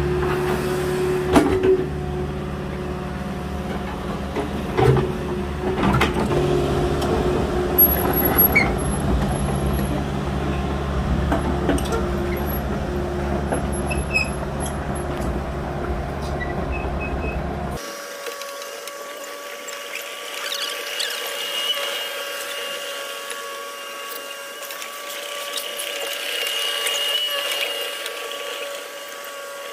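Compact farm excavator running under load, its engine rumbling steadily, with several sharp knocks. About two-thirds of the way through, the low engine rumble cuts off abruptly, leaving a thinner sound with steady high whining tones.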